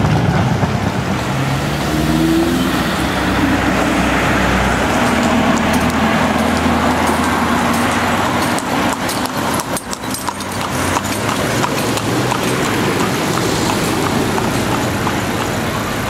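Street traffic: a car engine passing, its pitch rising over the first few seconds as it pulls away, then steady road noise with a run of sharp clicks near the middle.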